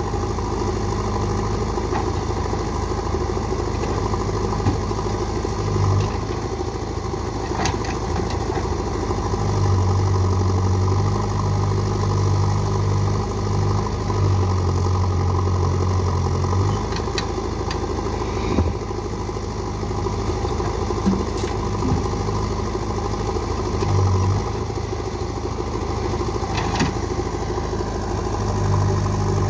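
Diesel engines of a JCB 3DX backhoe loader and a tractor running together, with the backhoe's engine note growing deeper and stronger for a few stretches as it works its loader. A few short sharp knocks are heard.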